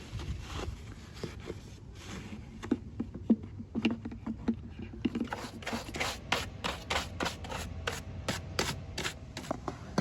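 Hand-tool work on lawn mower parts: scattered scrapes and light knocks, then from about halfway a quick, fairly regular run of short scraping strokes, four or five a second.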